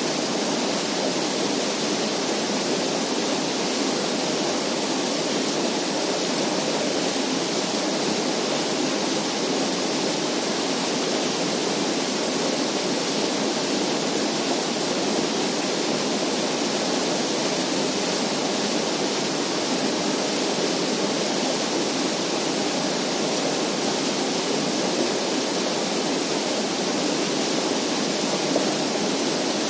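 Steady, even rushing noise that holds unchanged, with no distinct events in it.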